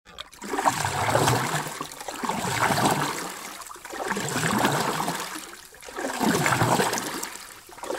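Rushing water, a noise that swells and fades in four surges.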